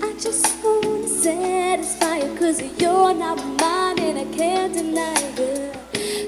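A pop song with a female lead vocal playing through an Audio-Technica AT-SPG50 compact Bluetooth speaker with its bass boost off. The sound is thin in the low end and brighter in the upper mids and treble, with a light background hiss.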